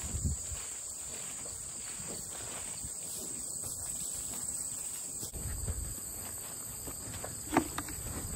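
Steady high-pitched chorus of insects chirring in summer grass, with low rustling noise coming and going and a single sharp knock near the end.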